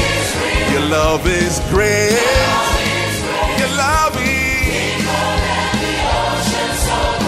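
Live gospel worship song: a male lead singer and a choir singing with band accompaniment.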